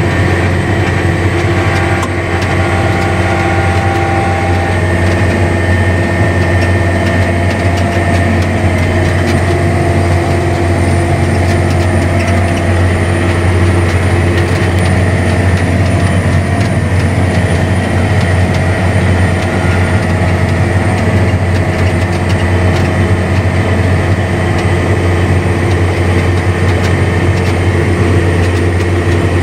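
John Deere 9120 tractor's diesel engine running steadily under load while pulling a tillage implement. It is a constant low drone with a steady whine above it.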